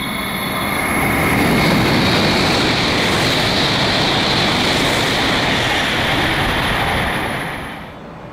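N700-series Shinkansen bullet train passing through a station at high speed without stopping: a loud, steady rush of air and wheel noise that builds over the first second or two and cuts off sharply near the end.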